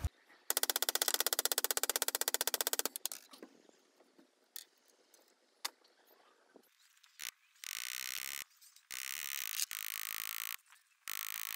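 A rapid, even rattle of clicks for about two and a half seconds, then a few scattered light clicks. Later, a power tool with a spinning wire brush works against the metal end of a hammer handle in bursts of about a second each.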